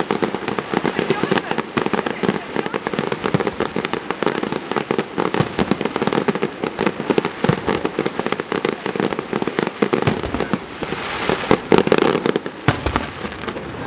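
Fireworks display going off: a dense, unbroken run of bangs and crackling from bursting shells and low crackling effects.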